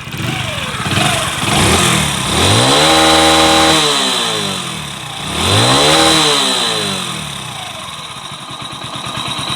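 Hero Splendor Plus's single-cylinder four-stroke engine idling, then revved up twice, each rev held briefly before falling back to idle. It runs smoothly, without its timing-chain rattle, with the cam chain tensioner freshly tightened.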